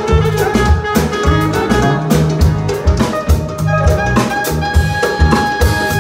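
Live band music: a clarinet carries the melody over electric guitar, drum kit and frame drum with a steady drum beat. About three and a half seconds in, the clarinet settles onto a long held note.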